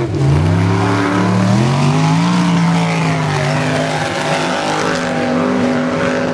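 Formula offroad competition car's engine running hard. Its pitch dips at the start, climbs over the next two seconds, then holds steady under throttle.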